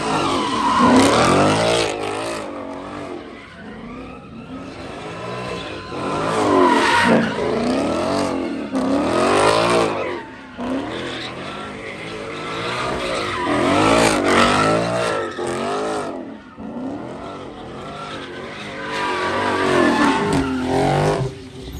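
Ford Mustang doing donuts: its engine revs up and down in repeated surges, with about five loud peaks, while the rear tyres squeal and skid in a burnout.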